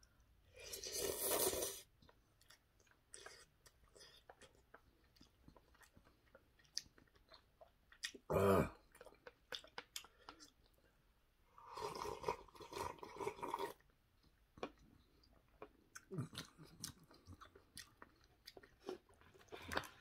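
A person eating instant ramyeon: loud slurps about a second in, again near the middle and for about two seconds at around twelve seconds, with quiet wet chewing clicks in between.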